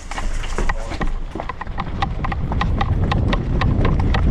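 A player running with kit rattling: quick, fairly even footfalls and clatter, about five hits a second, over a low rumble that grows louder.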